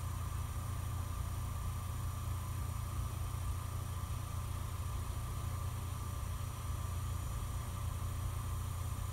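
Steady low electrical hum with a fainter steady whine above it.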